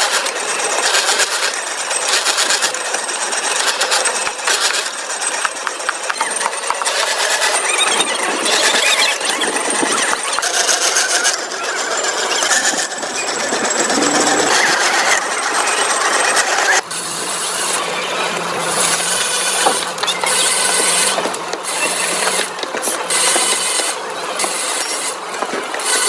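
Factory machinery running, with dense metallic clattering and knocking; the sound changes abruptly about two-thirds of the way through.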